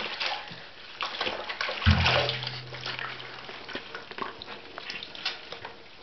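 Water sloshing and splashing in a plastic bucket as a puppy is washed by hand, with wet fur being rubbed. A knock about two seconds in is followed by a low hum lasting a second or so.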